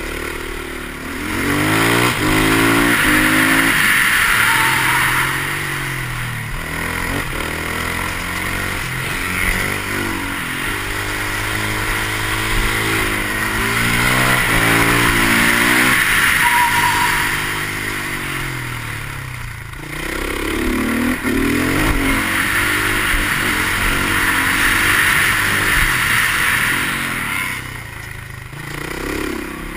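Husqvarna 510 SMR supermoto's single-cylinder four-stroke engine pulling hard and backing off, its revs climbing through the gears and falling away as it slows for corners several times. A loud wind rush on the microphone swells during the fast stretches.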